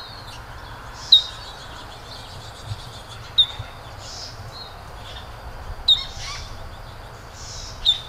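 Recorded Abert's towhee giving its common call: four sharp, high 'peep' notes about two to two and a half seconds apart, over a steady background hiss and low rumble.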